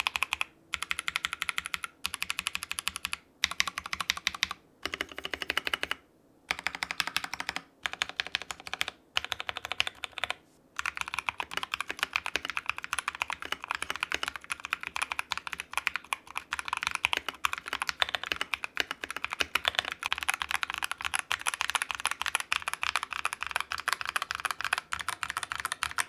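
Mechanical keyboard being typed on: an MK870 tenkeyless board with hand-lubed Akko Jelly Blue tactile switches, PE foam and Akko PBT keycaps. Short runs of keystrokes with brief pauses for about the first ten seconds, then steady, continuous typing.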